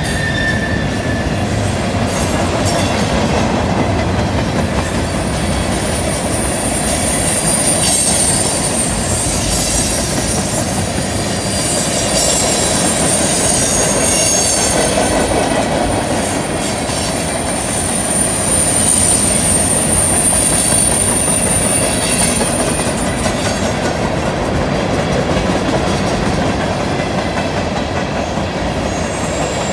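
Freight train's cars rolling past on a curve, steady wheel noise with clicks over the rail joints. A thin, high wheel-flange squeal rises over it from about four seconds in and holds until past the twenty-second mark.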